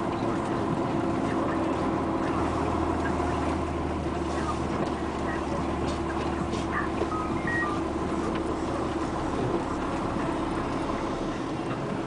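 Komatsu PC200 excavator's diesel engine running steadily, heard from inside the cab. A deeper hum joins from about two seconds in and fades near nine seconds.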